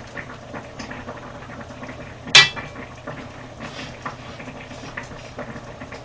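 A single sharp metallic clink of a metal ladle against the pan of stew about two seconds in, with a brief ring, amid faint small utensil clicks.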